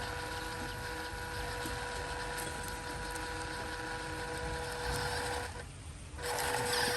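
Small electric motor and gearbox of an RC truck whining steadily at a constant pitch, cutting out briefly near the end and starting again.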